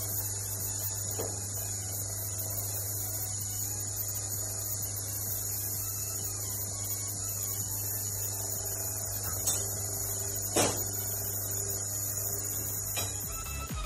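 Steady electrical hum with a faint high steady whine above it, broken by two sharp clicks about nine and a half and ten and a half seconds in.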